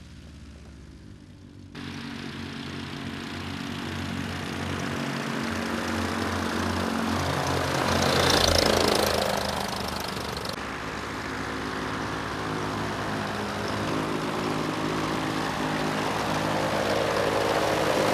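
Backpack paramotor's engine and propeller running steadily, loudest about halfway through as it comes close. The sound is quieter for the first couple of seconds and changes abruptly twice.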